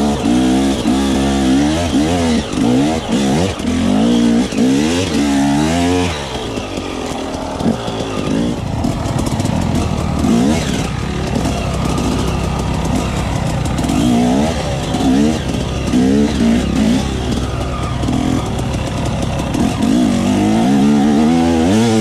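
Dirt bike engine revving up and down repeatedly as the bike pulls up a climb, then dirt bike engines running at a lower idle with a few short throttle blips, and revving hard again near the end.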